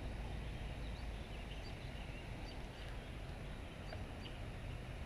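Outdoor shoreline ambience: a steady low rumble with scattered faint, short bird chirps.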